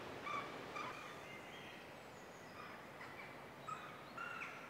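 Wild birds singing faintly: a string of short whistled notes, with a longer held note near the end.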